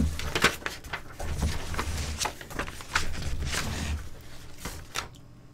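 Hands rummaging in an opened cardboard box and handling its contents: rustling and scraping with scattered clicks and dull low bumps close to the microphone, dying away near the end.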